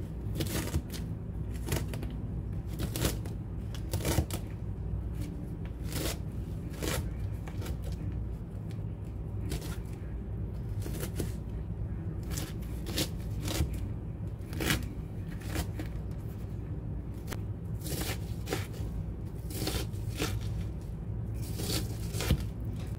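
Chef's knife slicing through a fennel bulb and knocking on a plastic cutting board in uneven strokes, about one or two a second, over a steady low hum.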